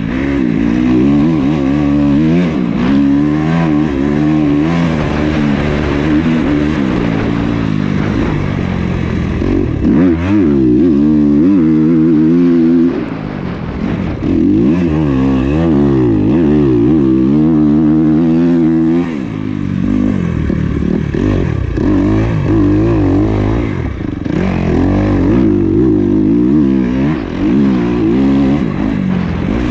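2021 Kawasaki KX250's four-stroke single-cylinder engine under hard riding, its pitch rising and falling again and again as the throttle is opened and closed through the gears, with brief drops where the throttle is shut off, about thirteen and nineteen seconds in.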